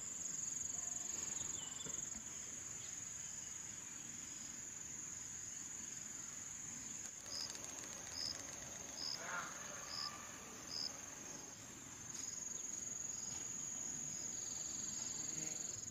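Insects trilling in one steady, high-pitched band. Midway through, a run of five short, high chirps comes about half a second apart.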